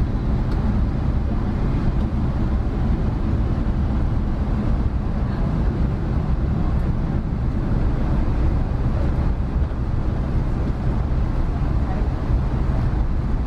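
Steady low rumble of a Boeing 777's engines at taxi power, heard from inside the cabin as the plane rolls along the taxiway.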